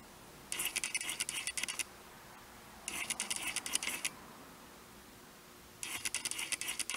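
Three bursts of scratchy rustling, each about a second long and a little over two seconds apart, from clothing rubbing as the body arches and drops through a cat-cow stretch.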